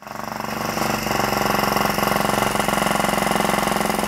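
Ride-on lawn mower engine running steadily with a fast, even firing pulse, getting louder over the first second.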